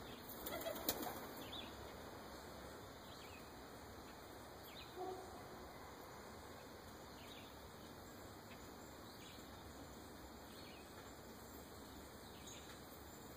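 A flock of pigeons' wings flapping, strongest in a brief rush about a second in, over a faint outdoor background with scattered short high chirps.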